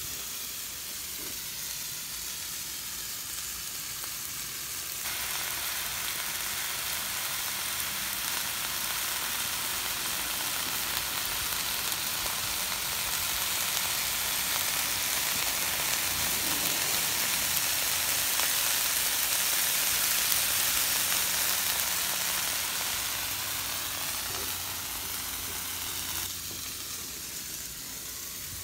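Raw seasoned ground beef sizzling on a Blackstone flat-top griddle, a steady frying hiss as the meat starts to brown and release its fat. It grows louder about five seconds in and falls back again near the end.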